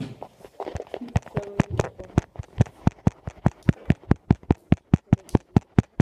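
A rapid, evenly spaced run of sharp taps, about five a second, beginning about a second in.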